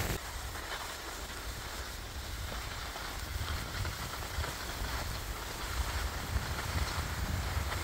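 Wind buffeting the microphone while skiing downhill, an uneven low rumble under a steady hiss of skis sliding over packed snow.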